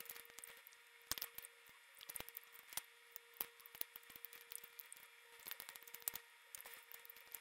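Close-miked eating of roast chicken: soft, irregular wet smacks and clicks of chewing and lip smacking as meat is bitten off and eaten by hand. A faint steady hum sits underneath.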